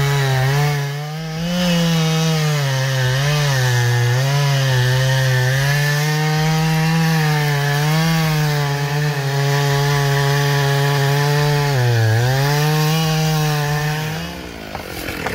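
Two-stroke chainsaw running under load in a cut, its engine pitch wavering as it bogs and picks up again, dipping sharply about twelve seconds in. It backs off and fades near the end.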